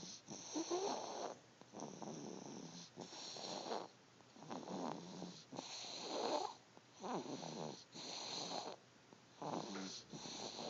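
A sleeping baby snoring: a regular run of noisy snoring breaths, each about a second long, with short pauses between them.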